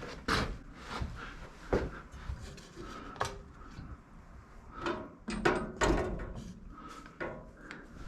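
Irregular clinks and knocks of hand tools and metal parts being handled during motorcycle disassembly, a few with a brief metallic ring.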